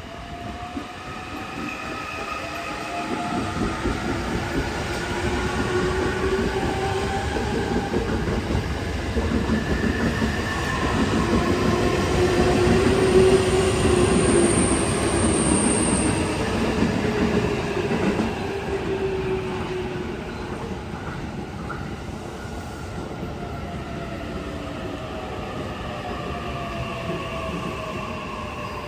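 JR East E657 series limited express train pulling into a station platform. Its running sound builds to a peak about halfway through, with a brief high squeal there, then eases to a steady lower level as the train slows and stops.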